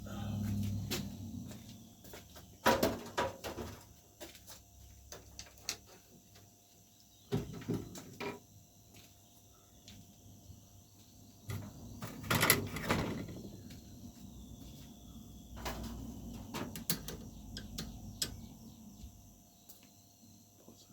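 Handling noise from taking the blades off a ceiling fan: scattered knocks, clicks and rattles, loudest about three seconds in, around seven to eight seconds in, and around twelve to thirteen seconds in.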